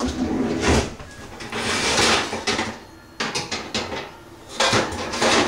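An oven door and metal rack being handled while a covered pot is put into the oven. There are metal knocks and scraping, a loud clank about a second in, and a quick run of rattling clicks a little past the middle.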